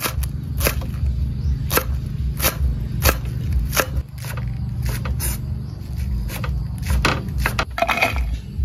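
A kitchen knife chopping green onions on a wooden cutting board: steady knocks of the blade on the board, about one every half second to two-thirds of a second, over a steady low rumble.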